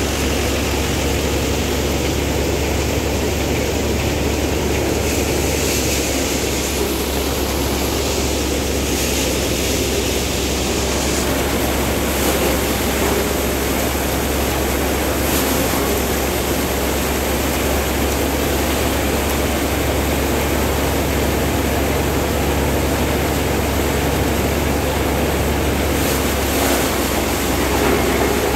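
Tractor-driven multicrop thresher running steadily under load as crop bundles are fed in: a continuous drone of the threshing drum and fans with a low hum from the Mahindra 475 DI SP Plus tractor's diesel engine driving it.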